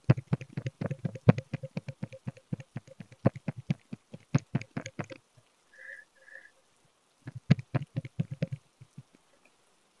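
Bamboo massage sticks tapping rapidly on a bare back: a fast run of hollow knocks, about eight a second, for some five seconds, then a second shorter run after a pause. Two faint short high notes sound in the pause.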